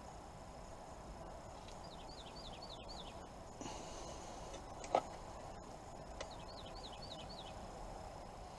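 Quiet steady background noise, with a small bird singing twice, each time a quick run of about five falling chirps, and a single sharp click about five seconds in.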